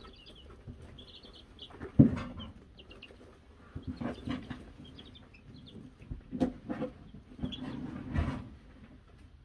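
Wyandotte chicks peeping in short runs of high notes, with scattered knocks and scuffling as they move and peck in wood shavings around a plastic feeder. The loudest is a sharp knock about two seconds in.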